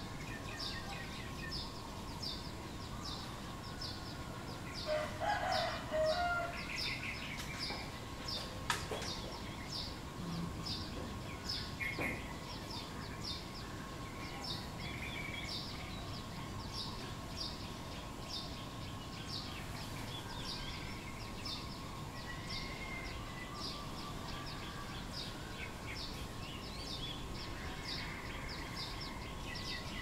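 Outdoor bird ambience: rapid, evenly repeated high chirps about two a second throughout, with scattered short bird calls. A louder, longer call comes from about five to seven seconds in.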